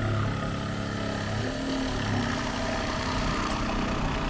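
An engine running steadily, with small shifts in its pitch.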